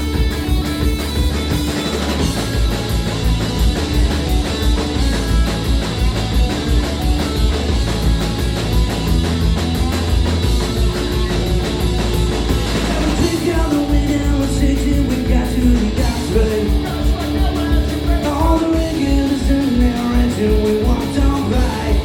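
Live punk rock band playing loud, with distorted electric guitar, bass and drums driving a steady beat.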